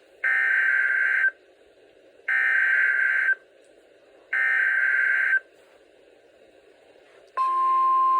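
Emergency Alert System SAME header: three bursts of digital data tones, each about a second long and a second apart, carrying a severe thunderstorm warning. Near the end a steady single-pitched alert tone begins.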